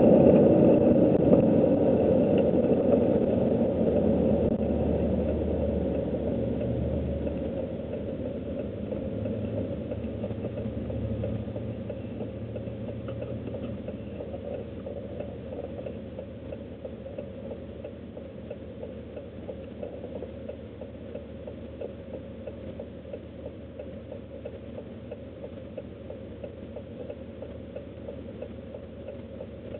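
Truck engine and driving noise heard from inside the cab, loud at first and fading gradually over about fifteen seconds, then running quieter and steady.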